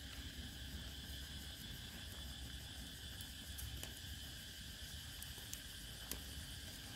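Faint, steady chirring of insects, with a low rumble underneath and a few faint clicks.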